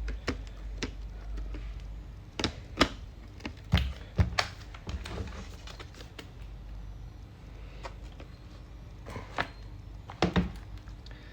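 Irregular light clicks and taps of small laptop parts being handled and set down on a workbench, a few of them sharper knocks, over a low steady hum.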